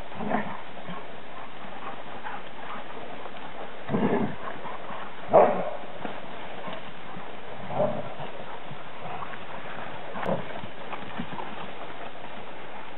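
Dogs giving about five short barks during rough chase play, the loudest about halfway through.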